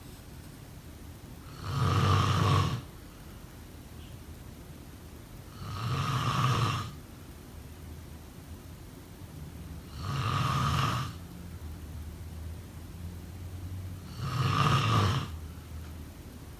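A person snoring: four loud snores, each about a second long, roughly four seconds apart.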